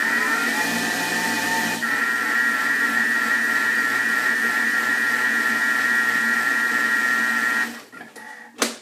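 Thermomix TM31 food processor motor running steadily with the butterfly whisk, beating lemon curd; the whine stops about three-quarters of the way through, followed by a single sharp click.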